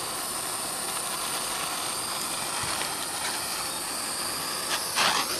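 Handheld propane torch flame burning with a steady hiss while it heats copper sheet for soldering.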